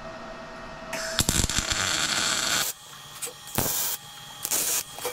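Welder tack-welding a steel shock-mount plate onto a kart frame: one burst of welding noise of about a second and a half, then three short tacks.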